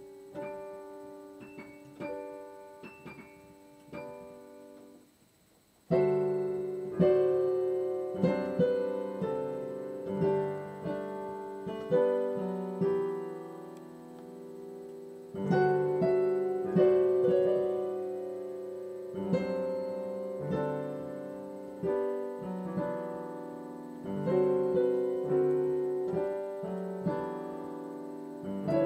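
Solo piano played at sight: softer separate notes at first, a brief pause about five seconds in, then louder, fuller playing with repeated accented chords.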